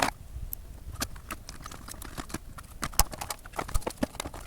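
Irregular sharp clicks and knocks of hard plastic parts being handled and fitted together while the clock unit is reassembled, the loudest about three seconds in.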